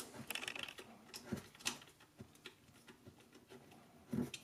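Light metal clicks and ticks from hand tools working on the flex-head ratchet's head joint as it is tightened back up, several in the first second or two and fewer after. A louder knock comes near the end.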